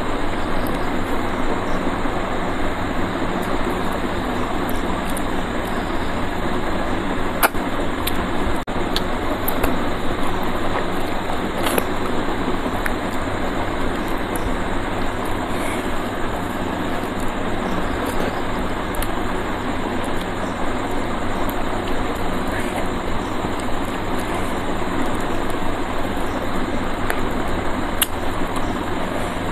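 Steady rushing background noise, with a few faint clicks and smacks from eating by hand.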